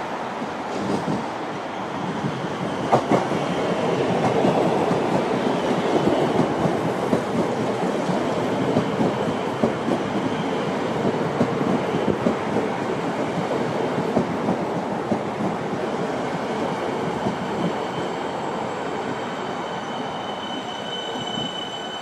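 Electric suburban trains passing through a station: an X'trapolis runs past with wheel rumble and clatter over the rail joints, swelling from a few seconds in and easing off later. Near the end, steady high whining tones join in as a Siemens train comes in on the near track.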